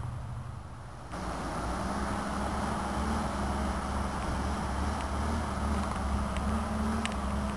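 Vehicle engine running steadily at constant low revs while a car is loaded onto a tow truck's tilted bed; the sound jumps abruptly louder about a second in at a cut.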